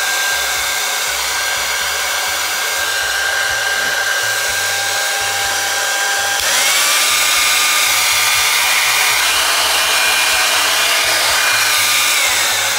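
Handheld hair dryer blowing steadily with a high whine; about six and a half seconds in its pitch rises and it gets louder, as on a higher speed setting, then it drops back just before the end.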